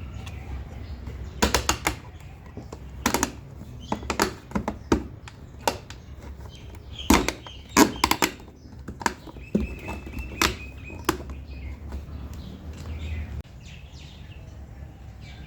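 Side mirror glass of a Honda Civic being pressed onto its mirror's mounting plate: a dozen or so sharp, irregularly spaced plastic clicks and knocks as the clips snap into place. Birds chirp faintly.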